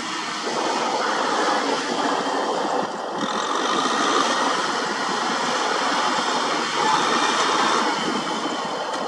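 Kubota M6040 SU tractor's diesel engine running under load as the tractor ploughs through deep mud. It is a loud, steady, dense mechanical noise with a brief dip about three seconds in.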